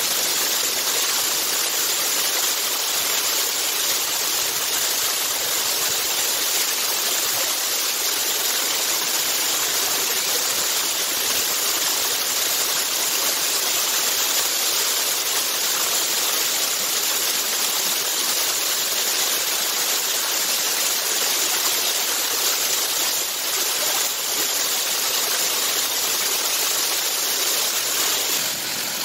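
Small waterfall pouring over granite boulders right at the microphone: a steady, heavy rush of falling water and spray.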